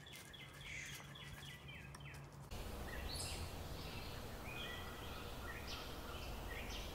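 Outdoor ambience of birds chirping and calling over a steady background hiss. About two and a half seconds in the background changes abruptly to a louder, even noise, and scattered bird calls carry on over it.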